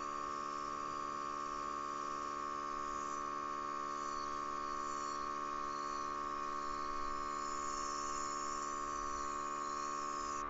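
Airbrush compressor running with a steady hum while the gravity-feed airbrush sprays a fine paint mist onto the model. The hum cuts off suddenly at the very end.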